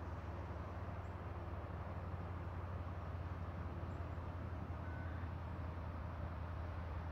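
Low, steady rumble of a distant diesel freight train approaching along the line, slowly growing louder.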